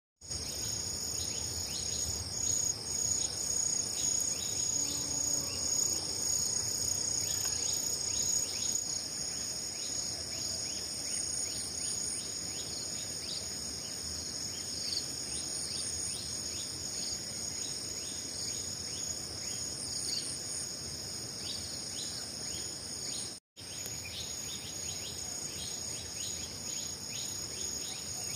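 Insects calling in a steady high-pitched chorus, with a brief cut-out about three quarters of the way through.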